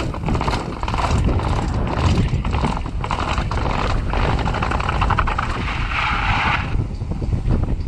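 Downhill mountain bike clattering down concrete steps: a rapid, continuous run of knocks as the tyres drop from step to step, with the bike rattling over each one. Near the end it rolls off onto a dirt path.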